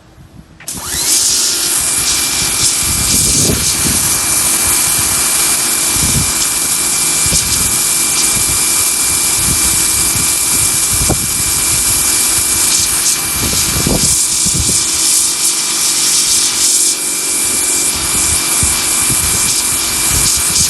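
Electric pressure washer spraying through its 0-degree tip: a sudden start about a second in, then a loud, steady hiss of the narrow jet with a steady high whine and irregular low thuds.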